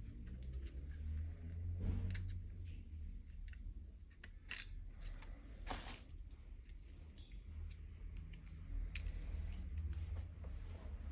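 Scattered small clicks and scrapes of hand tools and plastic parts handled during a smartphone's disassembly, the sharpest about four and a half and six seconds in, over a low steady hum.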